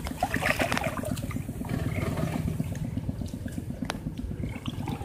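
Steady low rumble with fast even pulsing, with a few light splashes of water as a hand scoop net is worked through a shallow pond.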